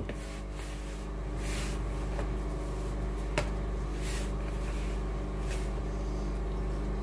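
A hand mixing flour, yeast and warm water in a plastic bowl: a few soft rubbing and scraping strokes, over a steady low hum.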